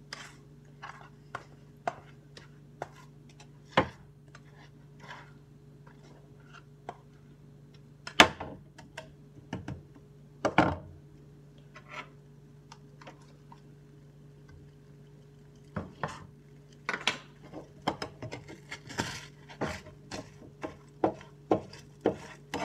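Spatula knocking and scraping against a frying pan while scrambled eggs are stirred: scattered light clicks, a couple of louder knocks about 8 and 10 seconds in, and busier tapping near the end. A steady low hum runs underneath.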